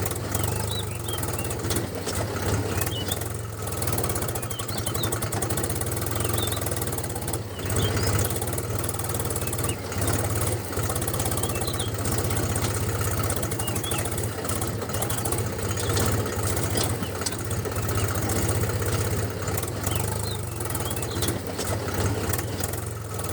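A small engine running steadily at idle, with a rapid, even ticking beat.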